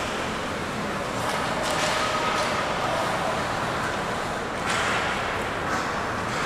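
Ice hockey play on an indoor rink: skate blades carving and scraping the ice, with a few sharp scraping hisses near 2 s and 5 s, over a steady hall rumble.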